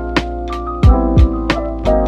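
Background music: sustained keyboard chords over a steady, laid-back drum beat with kick and snare.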